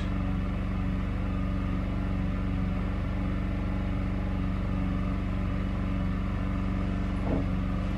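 A steady low hum made of a few even, unwavering tones, like a running appliance or electrical hum in the room.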